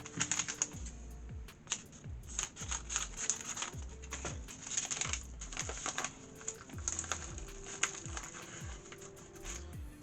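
Background electronic music with a deep bass beat, over many quick, light clicks and taps from small objects being handled.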